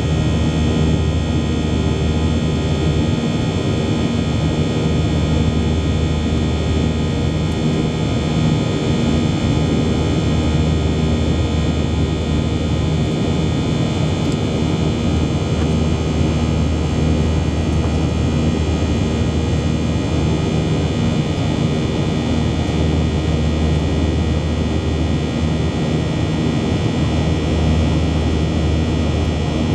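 Jet engines of a Boeing airliner heard from inside the cabin during the climb after takeoff: a steady, loud drone and rumble with several steady whining tones over it.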